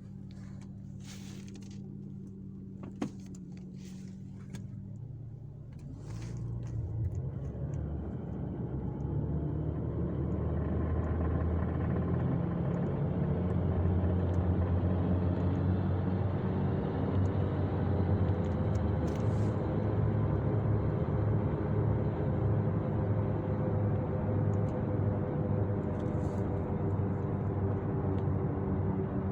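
2008 Audi A5 with a Multitronic CVT gearbox running, with a low hum at first, then a louder, steady drone building up from about six seconds in. This is the gearbox noise that shows only once the car is warm, which a gearbox oil change cured.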